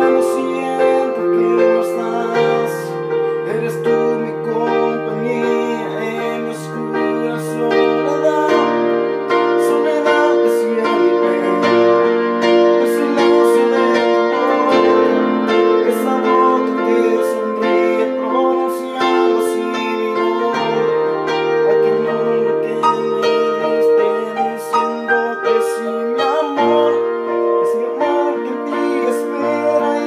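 Electronic keyboard played with both hands in an instrumental passage: held chords that change every second or two over steady low bass notes.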